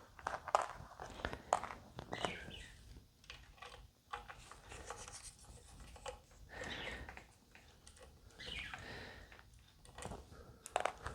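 Faint, scattered clicks, scrapes and rustles of small hardware being handled and removed from an electric guitar.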